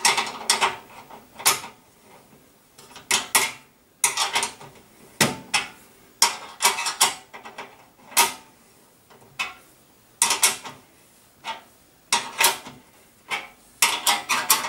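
Screwdriver tightening a bolt in a galvanized sheet-steel feeder pan, fixing the anti-waste ring in place: short bursts of metal scraping and clicking with each turn, about one a second.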